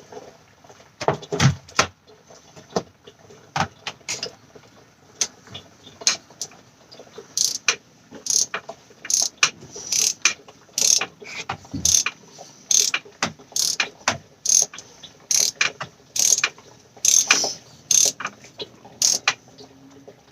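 Socket ratchet clicking in short bursts, a little more than one a second, as it screws the oil filter housing cap down, after a few knocks at first.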